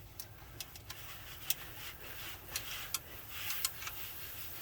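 Rubber heater hose crunching as a screwdriver breaks it free from its fitting: irregular small clicks and scrapes, with a rougher crunchy stretch past the middle.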